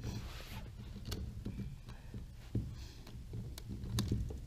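Hand handling noises from a plastic bulkhead fitting and PEX pipe being worked through a hole in a plastic tank wall: scattered small clicks, knocks and scrapes over a low steady rumble.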